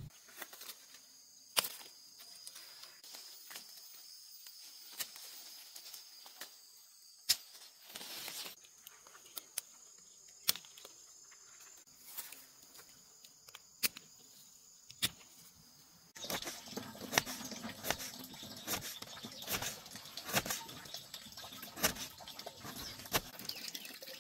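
Outdoor ambience: a steady high-pitched insect drone with scattered sharp clicks and rustles. About sixteen seconds in it gives way abruptly to denser rustling and clicking.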